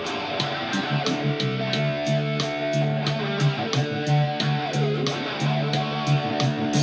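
Guitar playing a melody with sliding notes over sustained low notes and a steady beat of about four strokes a second.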